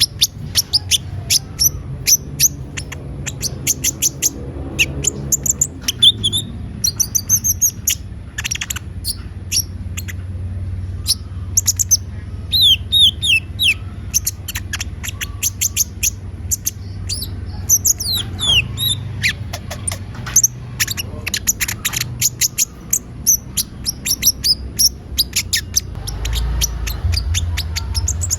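A sunbird of the kind Indonesian bird keepers call konin (kolibri ninja) singing without pause: rapid runs of sharp, high-pitched chirps and quick sweeping notes, sung as an excited full song to provoke other birds into answering. A steady low hum runs underneath.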